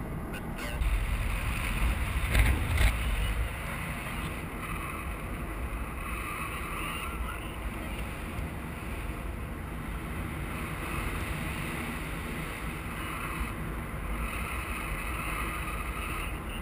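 Wind rushing over the microphone of a paraglider pilot's camera in flight: a steady, noisy rush that buffets louder for a couple of seconds near the start.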